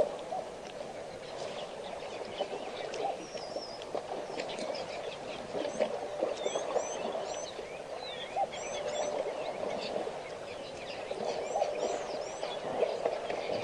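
Small birds chirping repeatedly, short high calls often in quick pairs, over a steady background noise. Scattered wet splashes and slaps come from African elephant calves wallowing in mud and water.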